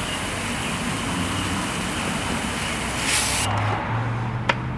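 Briggs & Stratton 6.75 small engine on a pressure washer firing and running briefly without choke after its carburettor was cleaned, then cutting out about three and a half seconds in: it runs and dies. A low steady hum and a click follow.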